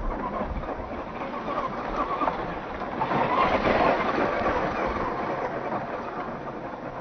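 Tamiya CC-01 Unimog radio-controlled truck driving over stony dirt: its electric motor and drivetrain running, its tyres crunching on gravel, slowed to 40% speed so it sounds deeper and drawn out. It grows louder to a peak about three to four seconds in as the truck passes close, then fades as it drives away.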